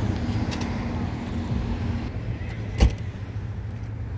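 A vehicle engine running with a steady low rumble, a faint high whine in the first two seconds, and one sharp knock about three seconds in.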